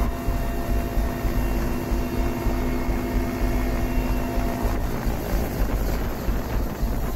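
Military transport helicopter heard from inside the cabin: steady engine and rotor drone with a deep rumble. The steady tones in it fade a little under five seconds in.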